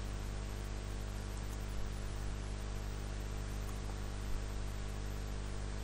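Steady electrical mains hum and hiss from the recording setup, with a few faint clicks from a computer keyboard and mouse.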